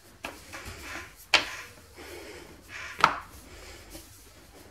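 Rolling pin rolled back and forth over a floured sheet of dough on a granite countertop, flattening it. Four sharp knocks come at uneven intervals as the pin hits the stone.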